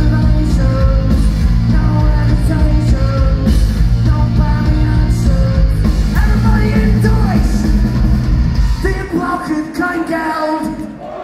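A live punk-rock band playing loudly: electric guitar, bass guitar and drums with singing. About nine seconds in, the bass and drums drop out, leaving mainly the voices.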